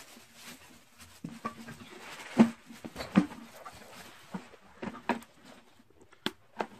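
Plastic wrapping rustling and a handful of short plastic knocks as the parts of a home cotton candy machine are unpacked and handled.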